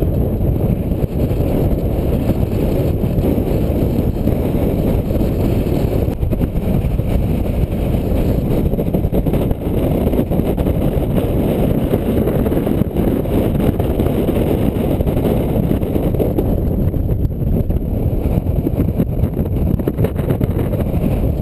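Strong wind buffeting the microphone: a loud, steady, low rumble of noise with no pitched tone.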